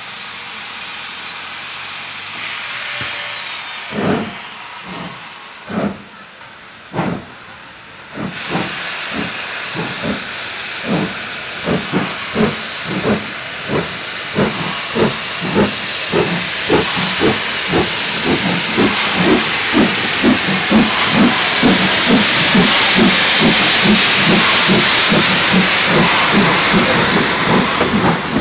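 Two steam locomotives, an LMS Ivatt 2MT 2-6-0 and a GWR Saint 4-6-0, starting a train away together: a few slow, separate chuffs, then exhaust beats that come faster and faster. A loud hiss of steam runs under the beats and grows as the engines draw near.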